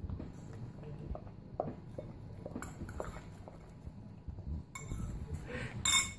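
A dog eating from a ceramic bowl while a metal spoon clinks and scrapes against the bowl in short, irregular taps. Near the end comes a loud rustle as a napkin is wiped across the dog's muzzle.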